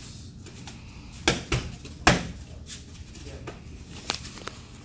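Punches landing on leather focus mitts: a string of sharp slaps at uneven intervals, starting about a second in, the loudest three in quick succession.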